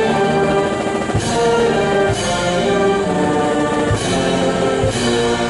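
Brass band playing slow ceremonial music in sustained chords, with drum and cymbal strikes about once a second.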